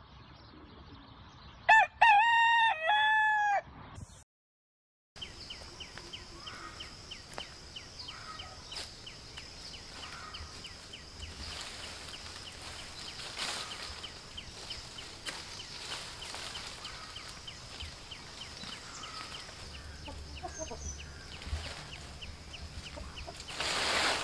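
A rooster crows once, a loud crow in several drawn-out parts about two seconds in. After a brief silence, a faint steady background of rapid, regular high chirping and a constant high whine, with a few soft rustling swishes.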